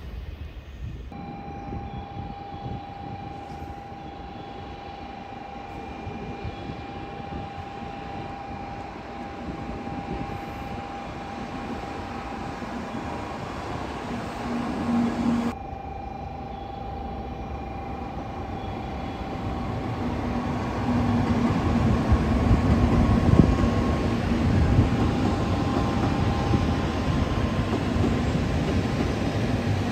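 Shinkansen bullet train running past on the rails: a low rumble with a thin steady whine, growing louder in the second half as the train comes alongside and staying loud to the end.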